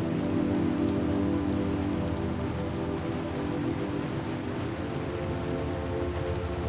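Steady rain falling on a surface, with scattered individual drops ticking. A soft, sustained low drone holds underneath, easing off a little over the first few seconds.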